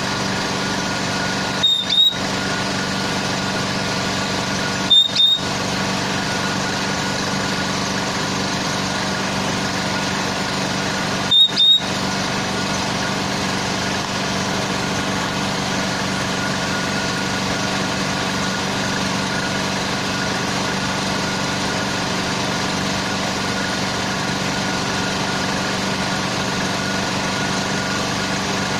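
Steady machine hum with an even drone. A short, high double chirp cuts in three times, about 2, 5 and 11 seconds in.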